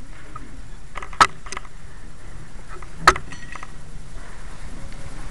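Two sharp clicks, about two seconds apart, over steady hall room noise, with no music playing.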